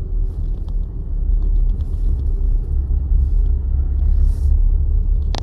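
Low, uneven rumble heard outdoors, a little stronger around the middle.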